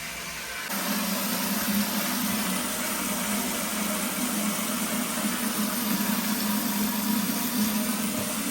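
An engine or motor running steadily: a constant low hum under a hiss, starting suddenly just under a second in.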